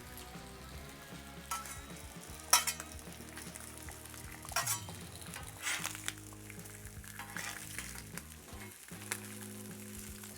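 Chopped vegetables, pineapple, ham and pepperoni sizzling on a Blackstone gas flat-top griddle, with a few sharp metal strikes from tools working the food. The loudest strike comes about two and a half seconds in.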